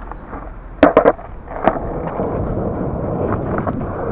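Skateboard wheels rolling over concrete, a steady low rumble, with a quick run of three sharp clacks about a second in and one more shortly after.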